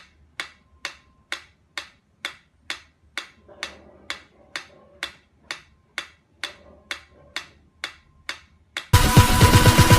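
Sharp, evenly spaced ticks, about two a second, like a clock or metronome. About nine seconds in, loud electronic music cuts in.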